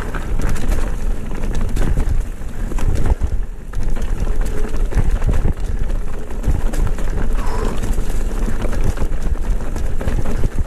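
Mountain bike riding down a rocky, leaf-strewn trail: wind buffets the camera microphone in a steady low rumble, while the tyres hitting rocks and the bike rattling over the bumps make frequent sharp clicks and knocks.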